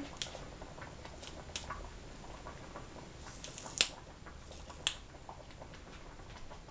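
Light kitchen handling noise: a few short clicks and taps as scallion stalks are laid into a full stockpot of soup. The sharpest click comes about four seconds in, over a faint steady hiss.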